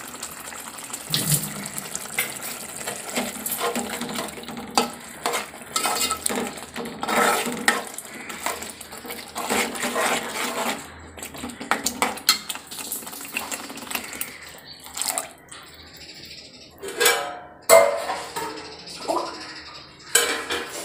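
Steel ladle stirring a thick masala paste in an aluminium pot, scraping and clinking against the pot's sides and bottom in irregular strokes. Near the end, water is poured into the pot to thin the curry.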